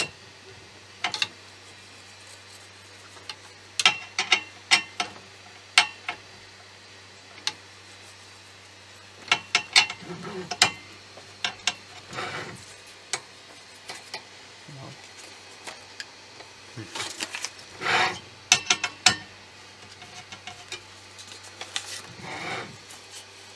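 Screwdriver clicking and scraping on a 3D printer's bed-levelling screw, with paper rubbing and rustling as it is slid between the nozzle and the bed to check the gap. Irregular clusters of small clicks and a few longer scratchy rubs, over a low steady hum.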